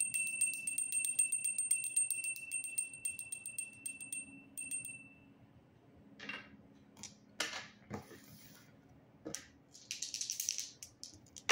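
Small handbell shaken rapidly, its clapper striking several times a second, giving a bright, steady ring that fades out about five seconds in. It is followed by a few scattered light clicks and a brief rattle near the end.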